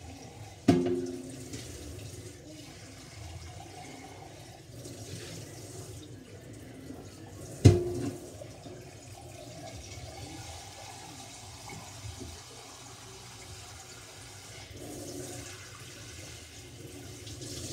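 Kitchen faucet running water into a stainless steel sink while a plastic jug is rinsed by hand. Two sharp knocks, each with a short ring, come about seven seconds apart.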